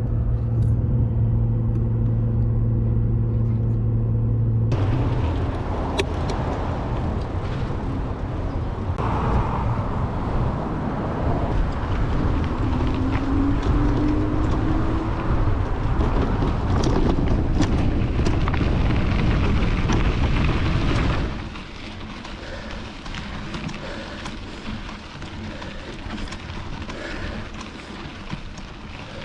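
A steady low hum for about five seconds, then a mountain bike ride: a loud, even rush of wind over the microphone with tyre noise on dirt trail, dropping to a quieter rush about twenty seconds in.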